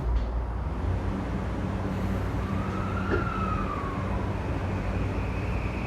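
Tokyu 3020 series electric train pulling away from the platform: a low rumble of wheels and motors with an electric whine from the traction inverter. The whine rises and then falls in pitch about two and a half seconds in, then settles into a steady high tone.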